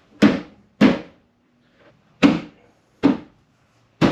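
Five sharp thumps, irregularly spaced about a second apart: blows on the plastic front bumper cover of a 2004 Pontiac GTO, knocking it onto its mounts and clips.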